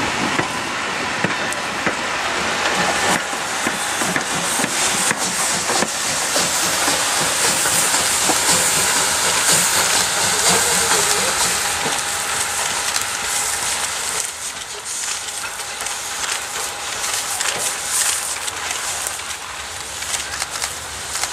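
Ty2-class steam locomotive moving slowly past close by, with a steady hiss of steam over the running noise; the sound eases after about 14 seconds as it draws away.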